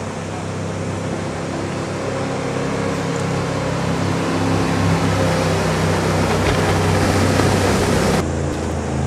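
Jet boat's engine and water jet running at speed as the boat approaches and passes, growing steadily louder with a rushing spray noise, then cut off suddenly near the end.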